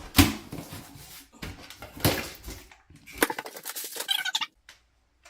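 Packaging and parts being handled out of a box: several sharp knocks and rustles of cardboard and plastic, with a squeak near the end, before the handling stops.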